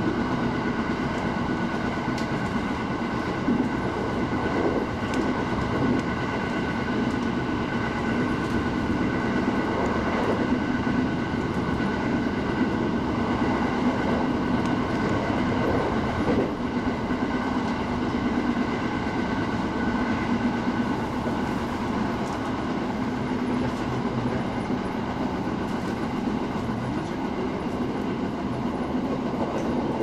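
JR East 701-series electric train running at speed, heard from inside the passenger car: a steady rumble of wheels on the track with an even hum running through it.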